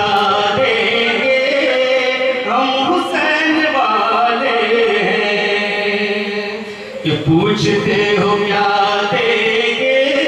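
A man chanting devotional Urdu verse in long, melodic held notes through a microphone and PA. One phrase trails off about seven seconds in and a new one begins.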